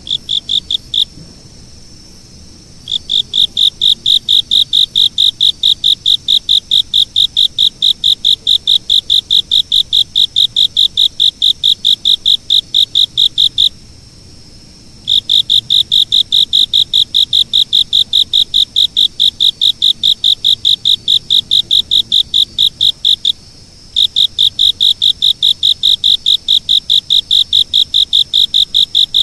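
A cricket chirping: a steady train of shrill, evenly spaced chirps at about four to five a second, falling silent briefly three times before starting again.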